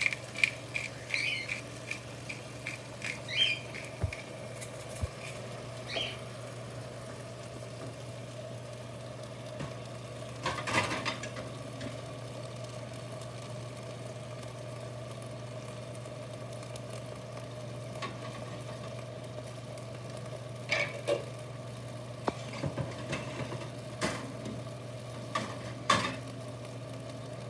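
Pepper mill grinding in quick ticks over the pan for about the first second. After that a steady low hum, broken by a few scattered knocks and clicks.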